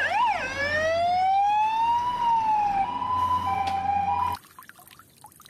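Fire engine siren changing patterns: quick up-and-down sweeps, then one slow rising and falling wail, then a high–low two-tone alternation that cuts off suddenly a little past four seconds in.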